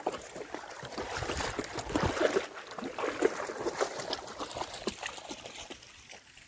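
River water splashing and lapping at the shore, with scattered small irregular clicks and knocks.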